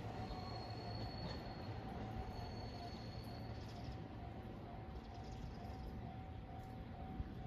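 Japanese level-crossing warning bell ringing in a steady repeating pattern, over a low rumble from the railway.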